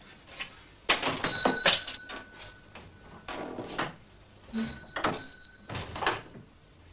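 Shop door being opened and shut, with knocks and rattles from the door. Twice, starting about a second in and again about four and a half seconds in, a door bell rings for about a second.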